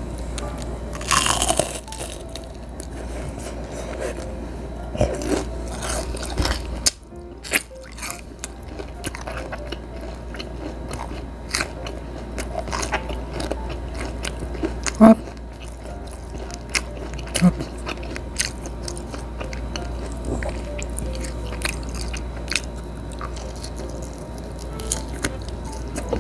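Close-miked crunchy bites and chewing of breaded fried calamari, with a loud crunch about a second in and crisp crackles as it is chewed. Background music plays underneath.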